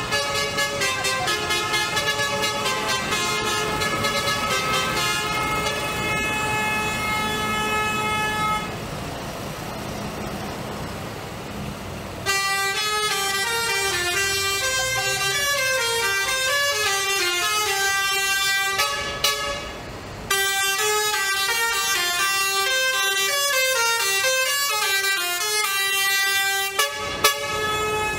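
Tractor horns honking almost without a break, several tones at once, over the engines of tractors driving slowly past. For a few seconds in the middle the horns stop and the engines are heard alone. Later the horns jump quickly from note to note, like a multi-tone musical horn.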